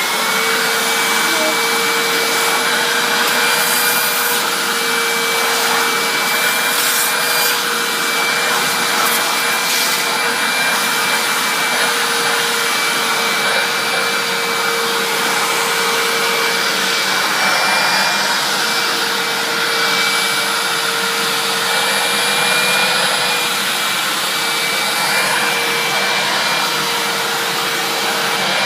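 Hoover upright vacuum cleaner running steadily with the crevice tool on its hose: a rush of air with a constant motor whine.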